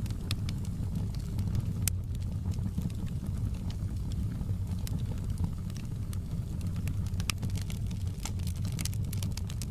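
Wood fire in a fireplace crackling: scattered sharp pops and snaps over a steady low rumble of the flames, with one loud pop about two seconds in and a quick run of pops near the end.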